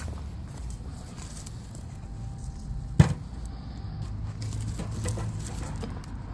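Footsteps in leather boat shoes on sandy ground scattered with dry twigs, over a low rumble, with one sharp crack about halfway through.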